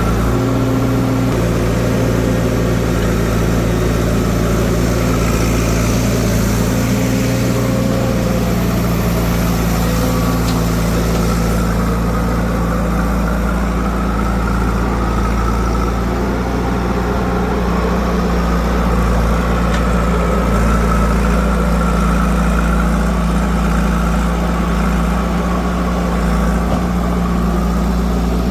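Heavy diesel machinery engines running steadily at low revs, the engine note shifting about halfway through.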